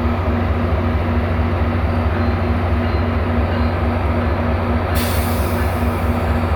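New Mexico Rail Runner Express commuter train's diesel locomotive rumbling steadily. About five seconds in, a sharp hiss of air starts.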